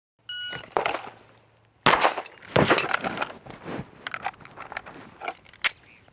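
A shot-timer beep, then about a second and a half later a single pistol shot; the rest is the clicks and clatter of a one-handed reload from slide lock, the empty magazine coming out and a fresh one being seated.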